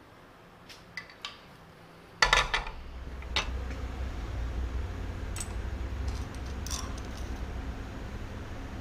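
Light metal clinks and taps as steel setup tools are handled on a milling machine table, with a louder clatter about two seconds in. A steady low hum sets in with the clatter and runs on beneath the clinks.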